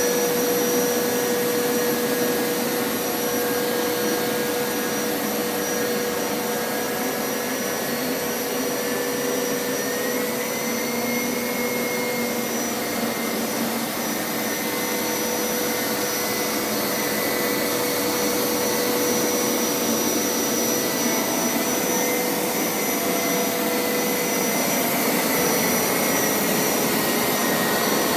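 Hoover Power Scrub Elite carpet washer running steadily as it is pushed over carpet: an even motor whine with a slight rise in pitch about ten seconds in.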